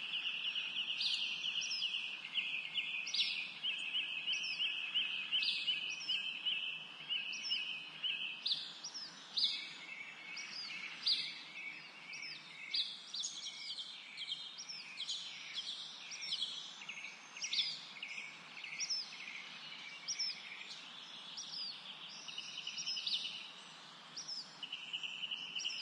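Small garden songbirds calling: short high notes that drop in pitch repeat about once a second. A fast buzzy trill runs under them for the first eight seconds or so, comes back briefly in the middle and again near the end.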